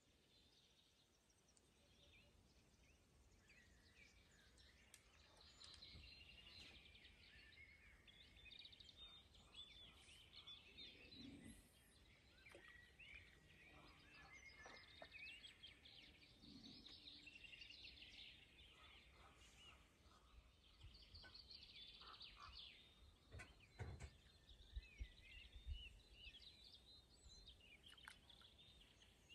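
Faint birdsong: many small birds chirping and trilling together, with a few low thumps near the end.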